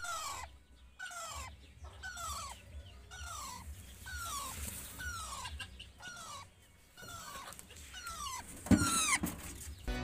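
Young rose-ringed parakeet crying out for its mother: a steady series of short, falling cries, about one every three-quarters of a second, with a louder knock near the end.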